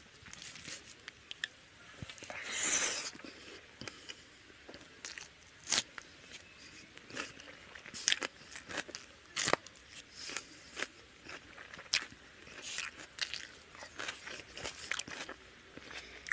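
Close-up eating sounds: wet mouth smacks and chewing of chicken curry and rice, with fingers squishing and mixing rice on a steel plate. Irregular sharp smacks come every second or so, with a longer swish between two and three seconds in.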